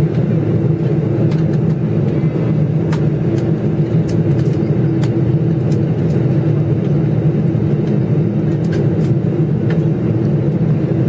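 Jet airliner cabin noise heard from inside the passenger cabin: the engines and rushing air make a steady, low rumble, with a few faint clicks now and then.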